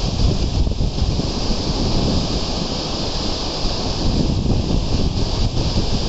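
Fast mountain stream rushing over rocks below, a steady wash of white water, with wind buffeting the microphone in gusts.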